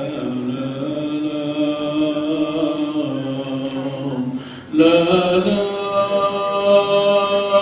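Voices chanting a church liturgical hymn in long held notes. The chant breaks off for a moment about four and a half seconds in, then comes back louder.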